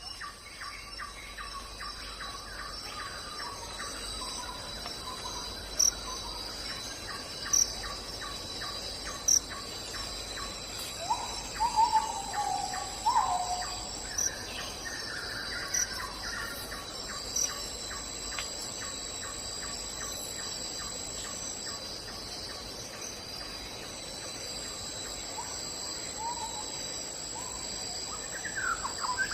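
Forest nature ambience: a steady, high-pitched chorus of insects with a fast pulsing trill under it, short sharp chirps every second or two, and bird calls, a few slurred notes in the middle and a louder rising call near the end.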